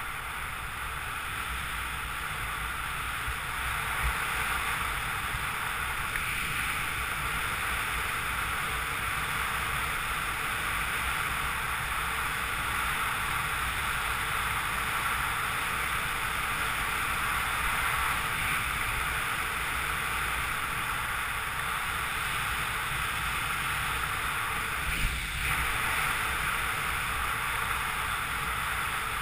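Steady wind rushing over the camera microphone as a speedrider flies fast over the snow, a constant airflow hiss with a low rumble beneath it. One short knock comes late on.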